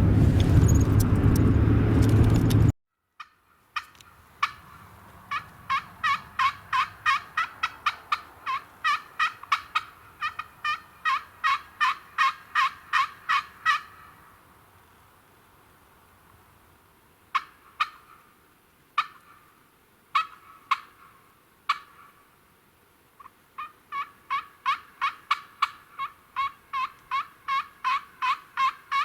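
Turkey yelping: a long run of evenly spaced sharp notes, about three a second, then a few single notes, then a second run. Before it, a loud rushing noise cuts off abruptly about three seconds in.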